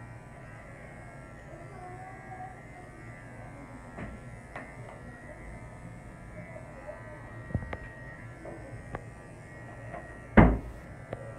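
Wahl pet clipper fitted with a snap-on comb, running with a steady buzz as it is worked over a toy poodle's coat. A few light clicks, and one loud knock near the end.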